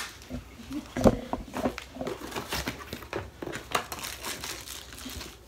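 Rustling and crinkling of unboxing packaging being handled, with scattered clicks and a single thump about a second in.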